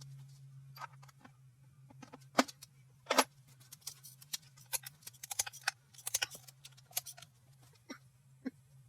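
Irregular metallic clinks and clicks of hand tools and engine parts being handled during an engine teardown, with two louder knocks about two and a half and three seconds in, over a steady low hum.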